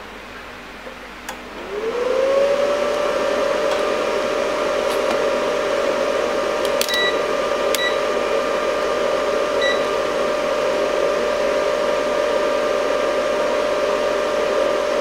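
A power supply's cooling fan spins up about a second and a half in, its whine rising quickly in pitch and then running steadily, as the 12 V supply to the Antminer L3+ hash board is switched back on. Three short beeps from a digital multimeter come partway through as its dial is turned.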